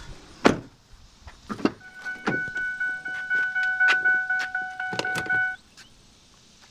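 A Ford F-350 pickup's electronic warning chime sounding as one steady tone for about three and a half seconds with the door standing open, then cutting off suddenly. Several sharp knocks and clicks, the loudest about half a second in.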